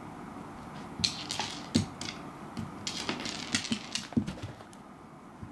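Dried persimmon seeds clicking and skittering across a wooden floor as a cat bats at them, with a quick irregular run of taps and a few duller thuds from about a second in until about four and a half seconds.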